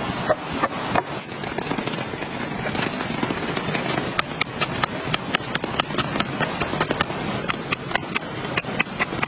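Steady rain falling, with irregular sharp ticks of drops striking the shelter, several a second and more frequent in the second half.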